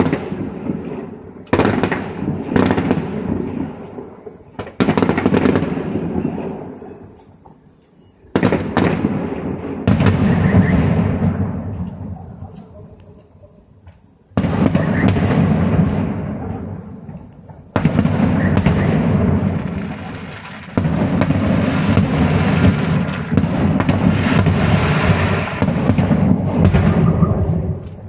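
Fireworks display: aerial shells bursting one after another, each sudden bang followed by a rumble and crackle that fades over a few seconds. About two-thirds of the way in the bursts come thick and fast, running together into a continuous barrage.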